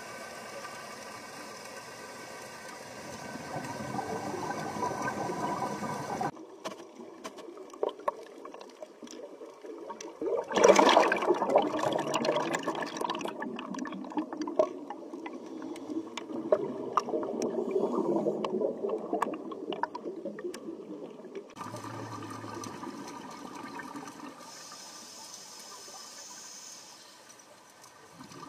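Underwater sound of scuba diving: a steady watery hiss with bubbling, and a loud crackling rush of a diver's exhaled bubbles streaming past the camera from about ten seconds in. The sound changes abruptly several times, and a faint steady hum sits under the first and last parts.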